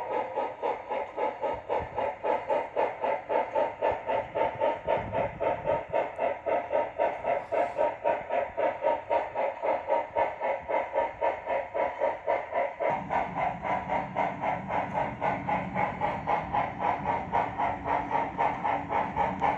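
Digital steam sound from an On3 model steam locomotive's WOW sound decoder, playing a steady rhythmic chuffing of about three beats a second. A deeper rumble joins about two-thirds of the way through.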